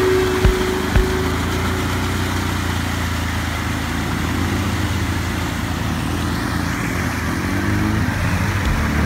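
ATV engine running steadily under load as the quad churns through deep mud and water, with mud and water splashing from the tyres. A few short thumps come in the first second.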